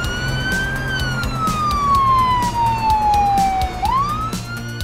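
Ambulance siren wailing. Its pitch tops out about a second in, falls slowly for about three seconds, then sweeps quickly back up near the end. It plays over background music with a steady beat.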